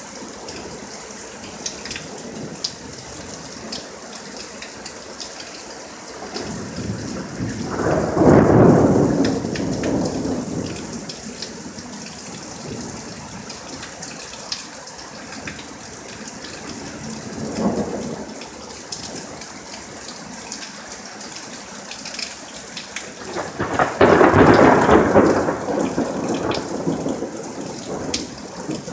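Thunder from a thunderstorm overhead over steady rain. Two loud rolling peals come about eight and twenty-four seconds in, each lasting several seconds, with a weaker rumble between them around eighteen seconds.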